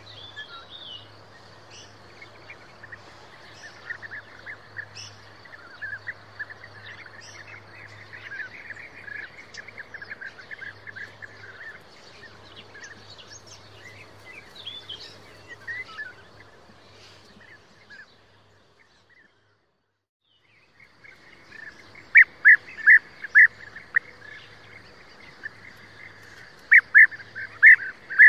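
European bee-eaters calling: many overlapping, fairly faint calls, then a break of about two seconds, then closer, louder calls in quick repeated runs.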